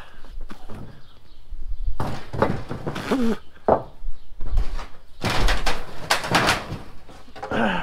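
Old roof sheathing being pried loose from below with a long wooden board: scattered knocks and creaks of wood, then a longer run of cracking and scraping about five to six and a half seconds in.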